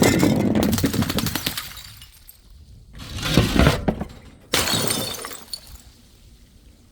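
Glass bottles shattering: a long crash full of tinkling shards that dies away over about two seconds, then two more crashes of breaking glass, the last one starting sharply.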